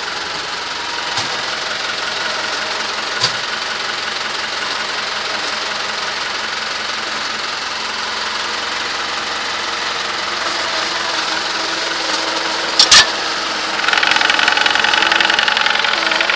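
New Holland TS110 tractor's diesel engine idling steadily with a clattering knock, heard close up. About thirteen seconds in there is a sharp double clank, the loudest thing here, and soon after the engine sound gets louder.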